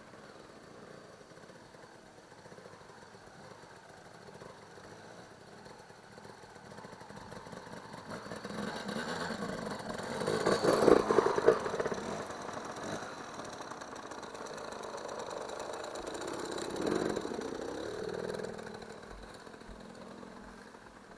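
Off-road enduro motorcycle engines running, swelling to their loudest about halfway through as bikes work close by, with a smaller rise a few seconds later, then fading away.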